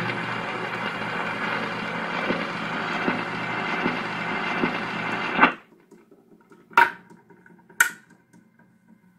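Stylus running in the run-out groove of a 78 rpm cardboard acetate on a 1940s Airline radio-phonograph: steady surface hiss and crackle with a tick about every 0.8 s, once per turn of the record. About five and a half seconds in the needle is lifted off with a click, leaving a faint hum, and two sharp clicks follow a second apart as the player is switched off.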